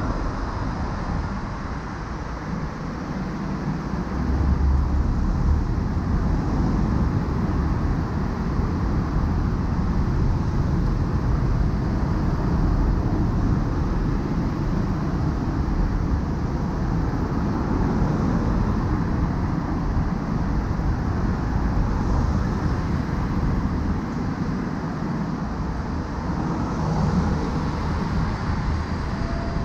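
Steady road and traffic noise while driving on a highway: tyre and engine rumble, swelling a little now and then.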